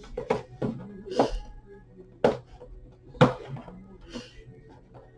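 Hands working open the cardboard-and-plastic packaging of a boxed action figure: a run of sharp, irregular clicks and knocks.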